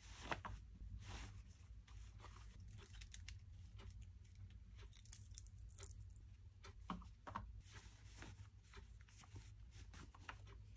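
Faint rustling of a toy figure's cloth combat jacket and small clicks as it is handled and undressed by hand, over a low steady hum. Around the middle there is a light crinkle that fits the figure's metal ball-chain dog tag moving in the hand.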